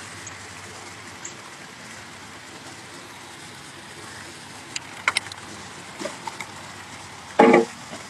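Steady outdoor background hiss with a few light clicks about five seconds in and a brief voice sound near the end.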